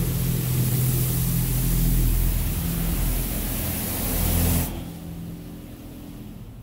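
Touchless car-wash spray jets hissing against the van's body and windows, heard from inside the cabin, over a steady low hum. The spray stops abruptly about two-thirds of the way in, leaving only the lower hum.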